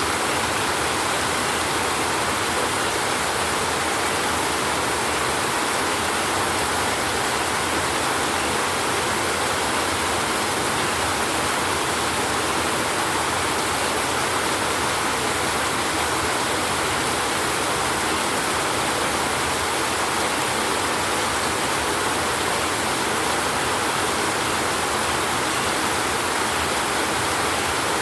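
Steady, even rain noise, with no thunder heard.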